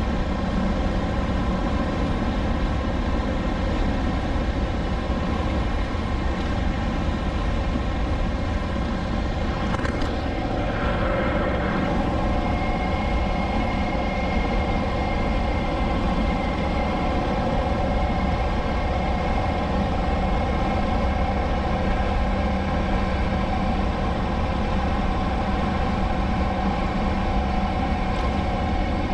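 Motorcycle engine running steadily at highway speed, with wind noise on the handlebar-mounted microphone.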